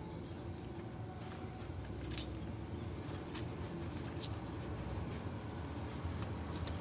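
Alpinestars leather motorcycle gloves being handled and turned over, with soft rustling and a few light clicks; the sharpest click comes about two seconds in. A low steady rumble runs underneath.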